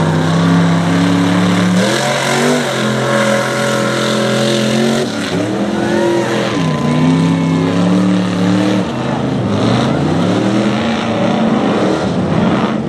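Mud truck engines revving hard under heavy load as the trucks plow through deep mud, the engine pitch dropping and climbing again several times, with mud spraying.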